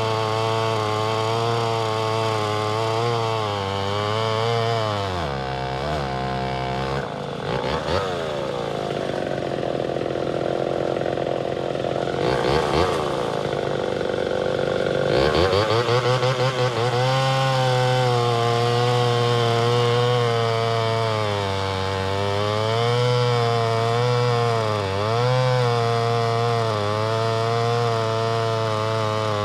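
1973 Homelite Super XL Auto two-stroke chainsaw cutting through a large log, its engine pitch sagging under load and recovering. About five seconds in it bogs down low and runs rough. About fifteen seconds in it picks back up and runs steadily through the cut, with brief dips.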